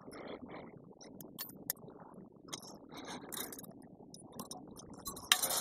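High-tensile fence wire being bent and wrapped into a knot by hand with pliers: scattered small clicks, ticks and scrapes of wire on wire and metal. A louder rasping noise starts suddenly near the end.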